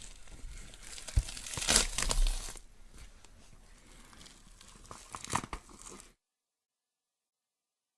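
Horror sound effect of tearing and crunching, loudest from about one to two and a half seconds in, with a few sharp cracks around five seconds in; it cuts off suddenly about six seconds in, before the next effect begins.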